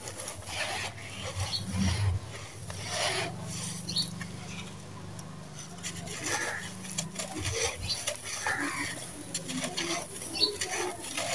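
Gritty sand-cement mix with small stones being squeezed and crumbled by hand in a pan: a continuous irregular grainy crunching and rasping, with grit pattering as it pours back down.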